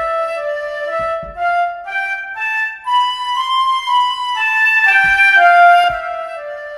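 MuseScore 4 playing back a solo flute line on its basic MS Basic sound: a melody of single notes climbing to a high run and falling back down, ending shortly before the end.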